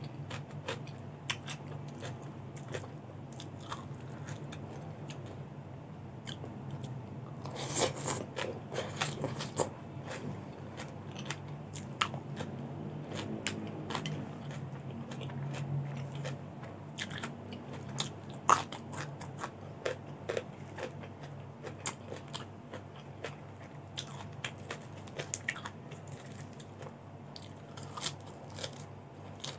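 Close-up chewing and crunching of crisp raw vegetables and rice, with many short crisp bites, densest about eight seconds in, and one sharp crunch a little past halfway. A low steady hum sits underneath.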